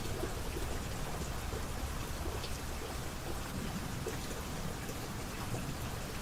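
Steady rain falling, an even wash of noise with scattered ticks of single drops striking a surface.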